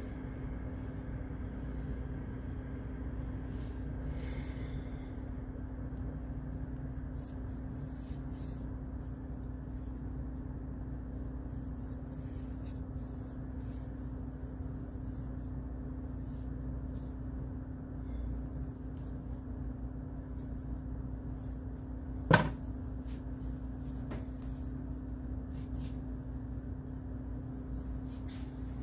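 A steady low hum, with one sharp knock about twenty-two seconds in.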